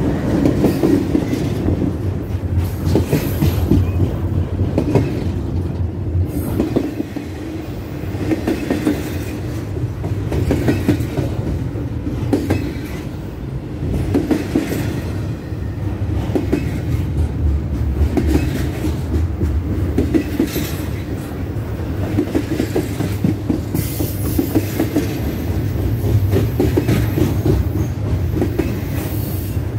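Norfolk Southern freight train cars rolling past in a steady stream, wheels clattering in rapid clickety-clack over the rail joints. A thin, high wheel squeal comes in near the end.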